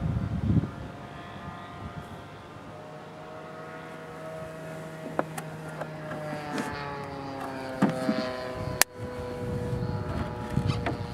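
Motor of a remote-controlled model airplane droning high overhead, its pitch slowly rising and falling as the plane flies around. A low rumble comes near the start and end, and a sharp click about nine seconds in.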